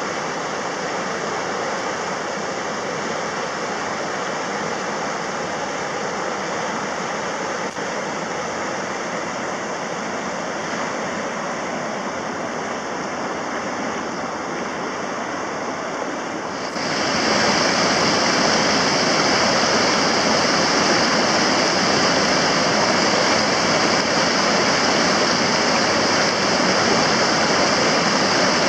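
River rapids rushing over rocks: a steady, even roar of white water. About two-thirds of the way through it jumps louder and brighter, as if from closer to the broken water, then holds steady.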